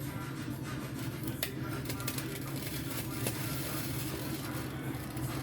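A steady low hum with a light hiss over it, and a couple of faint clicks, one about one and a half seconds in and one about three seconds in.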